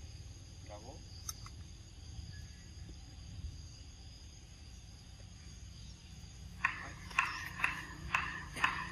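Steady insect chorus of crickets trilling high. Near the end, five short, sharp calls come in quick succession, about two a second.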